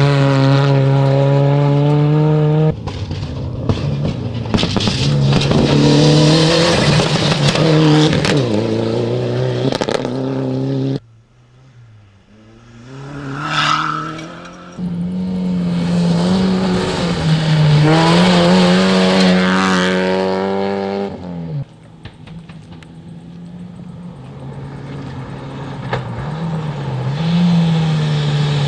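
Rally cars at full throttle on a gravel stage passing close by, engines revving up and down through gear changes, with gravel spraying from the tyres. Several passes follow one another, broken by abrupt cuts and a brief lull about eleven seconds in. Near the end a Mitsubishi Lancer Evolution approaches, its engine growing louder.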